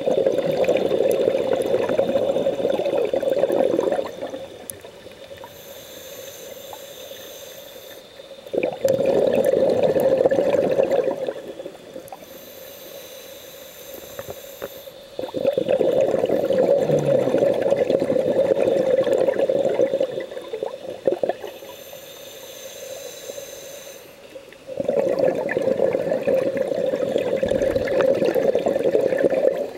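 Scuba diver's regulator breathing: four long bursts of exhaled bubbles, each a few seconds, alternating with quieter inhalations that carry a faint high hiss from the regulator.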